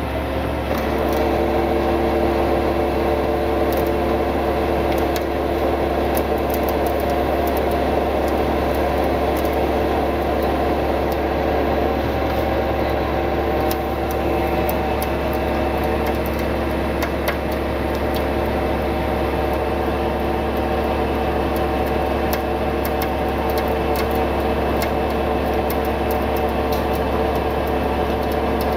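Steady drone of a tow truck's engine and hydraulic winch running through a winch pull, an even, unbroken hum with several steady tones. Faint scattered ticks sit on top.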